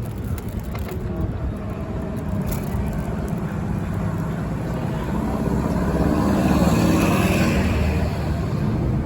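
Street traffic: a motor vehicle going by, its noise building to a peak about seven seconds in and then easing.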